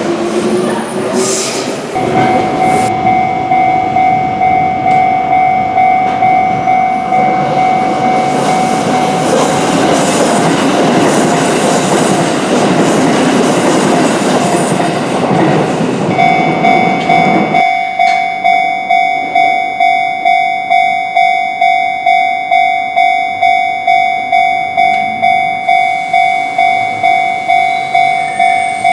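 Japanese level-crossing alarm ringing its electronic bell about twice a second while an electric commuter train passes. The train's noise cuts off sharply a little over halfway through, leaving the crossing bell ringing on its own.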